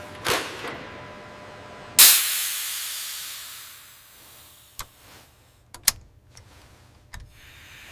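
Pressurised gas venting from a valve fitting: a sudden loud hiss about two seconds in that fades away over a couple of seconds, followed by a few sharp clicks.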